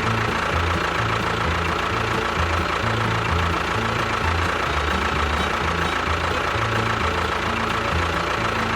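Small motor of a DIY model tractor running steadily with a thin whine, over background music with a stepping bass line.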